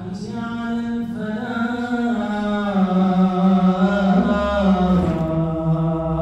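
A man chanting the Islamic call to prayer in Arabic through a microphone, holding one long melodic phrase whose pitch slowly falls, with a new phrase beginning about five seconds in.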